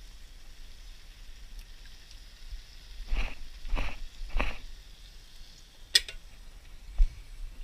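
Tinned tomatoes being shaken out of a can into a pot: three short wet plops about half a second apart, then a sharp click and a dull knock.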